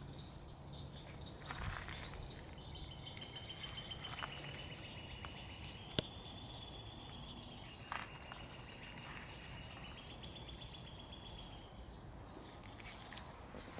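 Faint outdoor ambience: a steady high insect trill starts about two seconds in and fades out near the end, with a few faint chirps and a sharp click about halfway.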